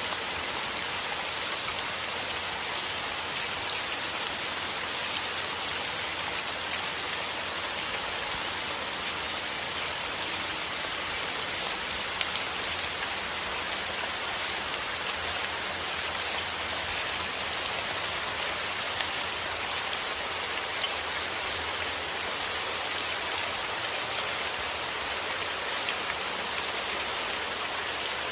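Steady rain falling, with individual raindrops tapping on a surface; an even hiss that keeps up without a break.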